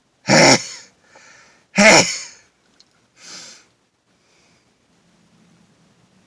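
A man sneezing twice in a row, about a second and a half apart, set off by pepper sniffed up the nose. Each sneeze is loud and sudden and falls in pitch. A quick breath is drawn between them and a softer breath follows.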